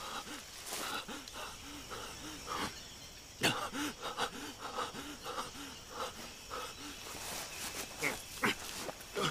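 An injured man panting hard on his back, short voiced gasps coming about twice a second, with a few faint crackles among them.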